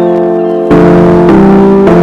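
Background music: sustained chords struck afresh about every half second, with a plucked-string sound.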